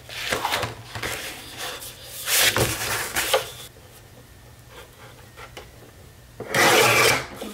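Heavy cardstock sliding and rustling as it is positioned on a paper trimmer, then one brief, louder scraping cut near the end as the trimmer's blade slices a strip off the sheet.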